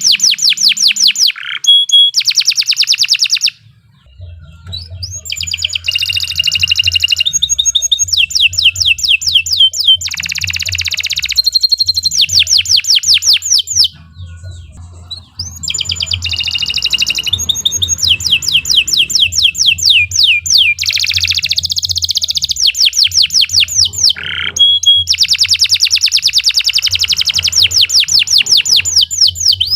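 Domestic canary singing a long, loud song of fast rolling trills, each phrase a rapid run of repeated notes, with two short pauses between phrases.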